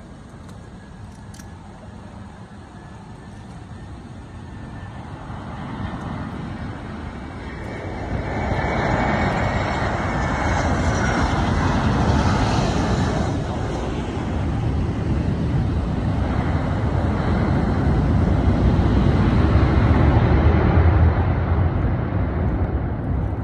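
Jet engines of a Royal Bhutan Airlines Airbus A320-family airliner landing: the engine noise swells to a loud, wide rush as the plane rolls out on the runway. A deeper rumble follows, loudest near the end, as the jet taxis closer.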